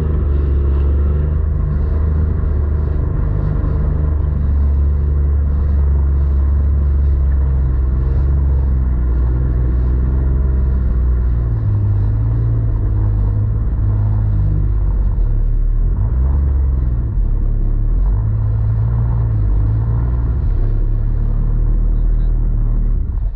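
Jet ski engine running steadily, its low note shifting up and down a few times in the second half as the throttle changes.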